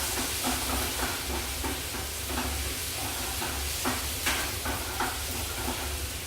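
Chopped tomatoes and onions sizzling in olive oil in a frying pan, with frequent short scrapes and taps of a utensil stirring them.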